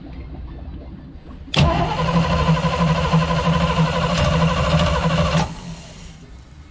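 Starter cranking a 350 Chevy V8 boat engine fitted with a new Edelbrock carburetor, turning it over at a steady pace for about four seconds; it begins about one and a half seconds in and cuts off suddenly.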